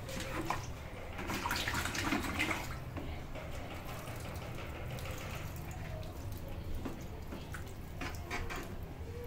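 Soft, uneven rustling and small clicks of hands working wet potting soil around seedlings in a plastic planter box, over a steady low hum.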